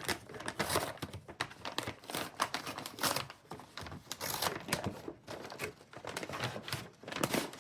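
Packaging crinkling and rustling in irregular crackles as a package is handled and opened.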